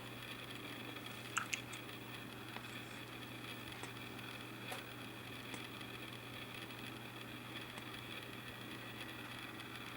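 Quiet room tone: a steady low hum under faint hiss, with a few small, faint clicks, two close together about a second and a half in and another near the middle.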